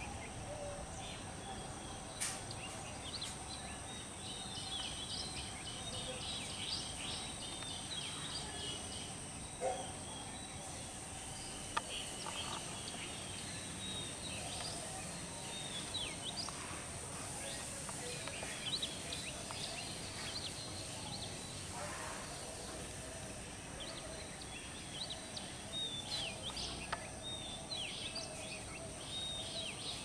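Several birds chirping and calling in a morning chorus: many short, high chirps and whistles scattered throughout, over a steady outdoor background hiss with a thin, steady high tone.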